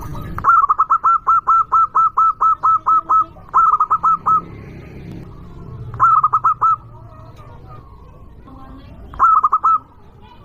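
Zebra dove (perkutut) cooing: a long, rapid run of short, ringing notes at about five a second, then three shorter runs of the same notes a few seconds apart.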